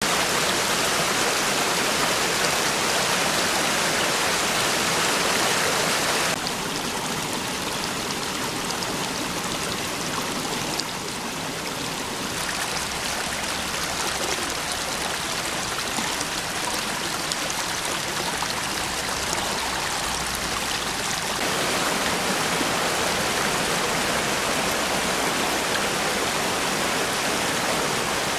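Small forest-stream rapids rushing and splashing over rocks in a steady rush of water. The sound drops a little about six seconds in and swells again about two-thirds of the way through.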